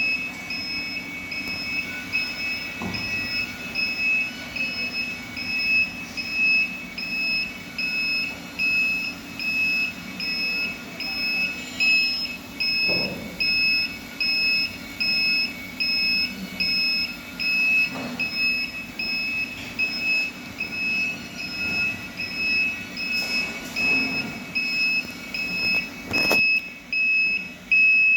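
Electronic beeper sounding a high, steady-pitched beep over and over, about three beeps every two seconds, over a steady low hum, with a few knocks here and there.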